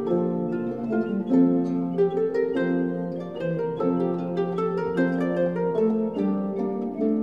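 Instrumental music: a plucked-string tune of many quick notes over a held lower line.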